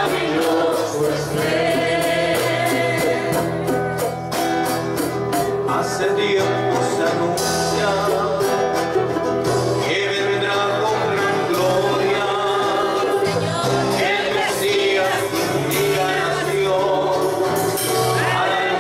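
A congregation singing a gospel worship song together over instrumental accompaniment with a steady bass line and beat.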